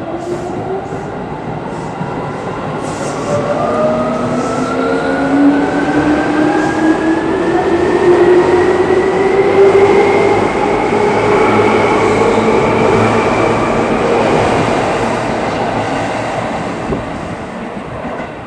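Seibu 3000 series electric train pulling out of a station and accelerating past: the traction motors whine, rising steadily in pitch, over the rumble and clatter of the wheels. It is loudest about halfway through as the cars go by, then fades as the train draws away.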